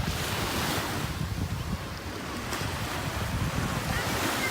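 Ocean surf washing ashore, with wind buffeting the microphone.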